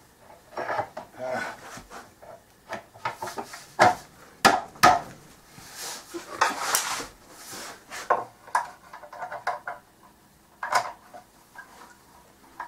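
A long screwdriver clinking and scraping on the metal hub and screw under a plywood turntable top, with wooden knocks as the top is handled. The turntable top is being fastened to the gear-motor hub. The knocks and clicks come irregularly, the loudest a few around the middle, with a short scrape soon after.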